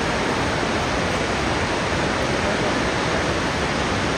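Waterfall at Shannon Falls: a steady, unbroken rush of falling water.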